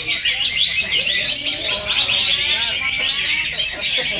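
Cucak ijo (greater green leafbird) song: a continuous, rapid stream of high chirps, whistles and trills with no pauses, as in a singing contest.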